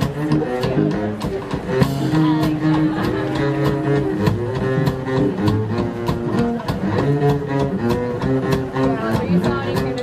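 Traditional New Orleans jazz band playing an instrumental passage with a steady beat.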